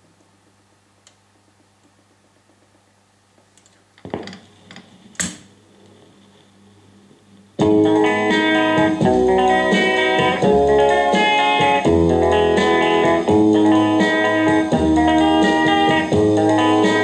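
Philips AG4116 valve record player setting its stylus down on a 33 rpm LP: a few clicks about four seconds in, one sharper click just after, then from about halfway music, led by guitar, plays loudly through its loudspeakers.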